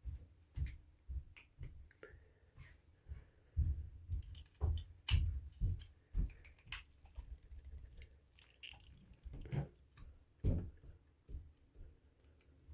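Irregular sharp clicks and knocks of a switchblade being handled and worked while it is rinsed out, with a little dripping water.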